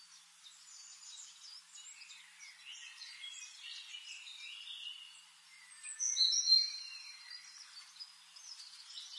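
Birdsong: several small birds chirping and twittering, with one louder, clearer call about six seconds in.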